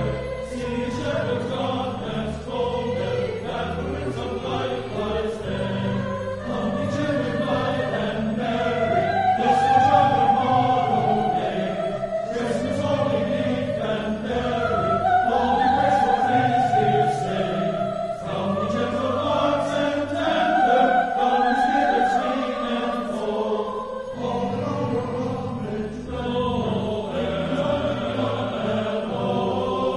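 A choir singing in a classical style, with voices holding long, swelling notes over steady low accompanying notes.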